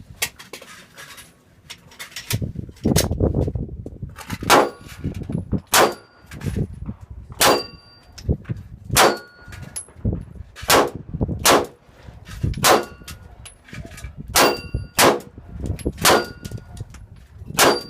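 Pistol shots fired at an uneven pace, about a dozen of them starting around four seconds in, many followed by the ringing clang of a hit steel target plate.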